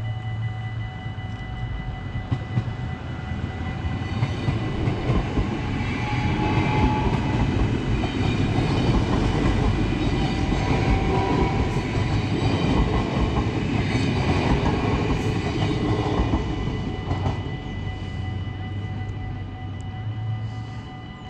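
NS VIRM double-deck electric train passing over a level crossing: its wheels rumble and clatter on the rails, building up, loudest in the middle and dying away after about 17 seconds. The crossing's warning bells keep ringing with steady tones throughout.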